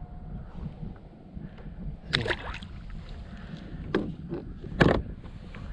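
Knocks and clatter on a kayak over a steady low rumble: a few sharp strikes about two seconds in, another at four seconds, and the loudest just before five seconds.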